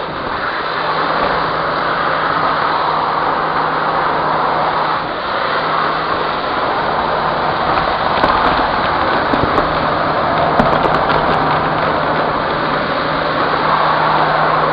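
Vacuum cleaner running steadily with a crevice tool on a hard floor, its motor giving a constant hum under the suction rush. A few sharp clicks come between about eight and eleven seconds in as small debris (glitter, beads) is sucked up the tool and rattles up the hose.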